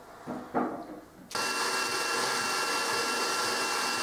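A couple of light wooden knocks, then about a second in a cordless drill starts and runs at a steady speed with a constant whine, boring into the wooden cabinet top.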